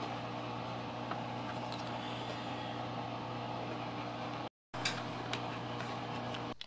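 A steady machine hum made of several even tones, with a few faint light clicks of the plastic ExerSaucer base being handled. The sound drops out completely for a moment about two-thirds through and cuts off suddenly at the end.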